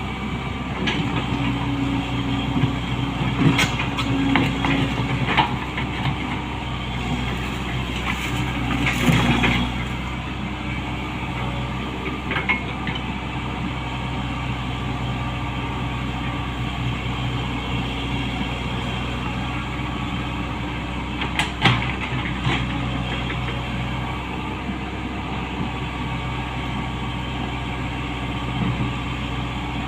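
Komatsu PC75US-3 excavator's diesel engine running steadily, with a few sharp metallic knocks, loudest about 21 seconds in.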